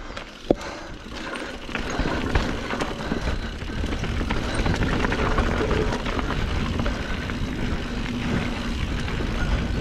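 Full-suspension mountain bike rolling over a rough dirt and rock trail: tyre and trail noise with knocks and rattles, picked up by a GoPro's built-in microphone along with wind. There is a sharp knock about half a second in, and the riding noise gets louder from about two seconds in.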